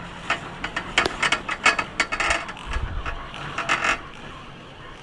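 Chairlift chair clicking and rattling in irregular bursts as it rides along the cable, with a low thump near the middle.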